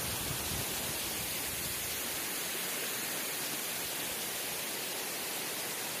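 Waterfall spilling down a rock face onto boulders: a steady, even rush of falling water.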